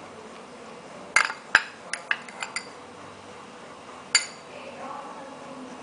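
A spoon clinking against a dish while half-spoon measures of herbal powder are taken: a quick run of about six light clicks, then one louder clink that rings briefly, about four seconds in.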